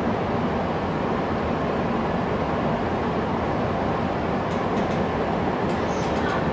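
Inside a Joban Line rapid commuter train as it pulls into a station: a steady rumble and rush of wheels on rail and running gear. Near the end come a few sharp clicks and a brief high squeak.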